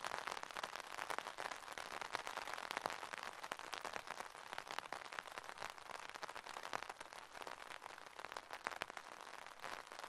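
Steady rain falling: a dense, even patter of countless small drop hits.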